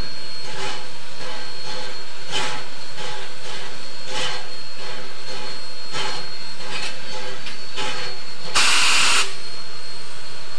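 Ex-C&NW #1385, a 4-6-0 steam locomotive, puffing with short uneven chuffs as it moves slowly. About eight and a half seconds in comes a short, loud burst of steam hiss.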